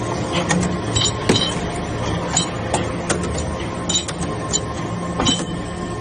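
Hydraulic briquetting press running with a steady hum while compacting metal chips into briquettes. About a dozen sharp metallic clinks come at irregular intervals over the hum, from the chips and pressed briquettes.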